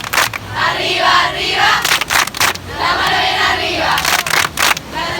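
A group of people shouting a cheer together in unison, chanting in repeated phrases a couple of seconds apart.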